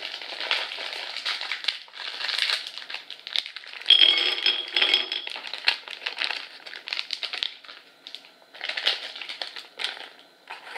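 Plastic snack wrapper crinkling and rustling as a pack of chocolate pretzel snacks is opened and the pretzels are poured onto a ceramic plate. The crinkling is loudest about four seconds in, with scattered small clicks later on.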